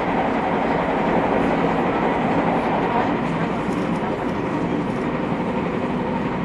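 Interior running noise of a JR 221 series electric train, heard from inside motor car KuMoHa 221-70: wheels on rail and the car's running gear make a steady rumble as the train travels at speed.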